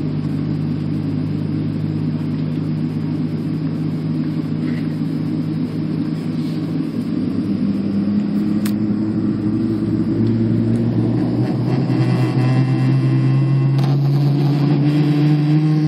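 Steady drone inside the cabin of a Boeing 777-300ER. From about halfway its tones rise slowly in pitch and grow louder as a GE90 jet engine spools up to start. A single click sounds just past halfway.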